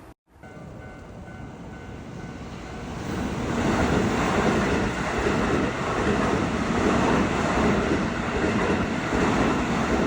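A Keihan electric train passing, its wheels running on the rails. The noise builds from about three seconds in and stays loud to the end.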